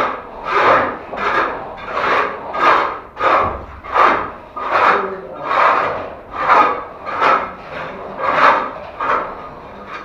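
A plastering tool scraping over plaster mortar in a steady run of about fourteen rasping strokes, roughly one and a half a second, as a ceiling cornice moulding is shaped.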